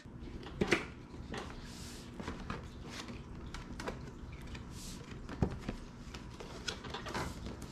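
Cardboard packaging being handled: a white paper outer sleeve sliding off a drone box, with soft scraping rustles and scattered light taps and knocks.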